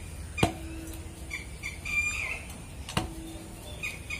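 Two lumps of dough dropped into a stainless-steel bowl, each a sharp knock with a brief metallic ring, about two and a half seconds apart. Behind them a bird calls over and over in short high notes.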